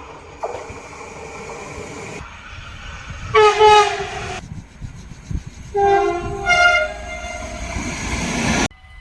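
Dutch train horns sounding. A faint horn comes first, then a loud horn blast about three and a half seconds in, then a two-note blast, low then high, around six seconds in, over rising train rumble that cuts off suddenly near the end.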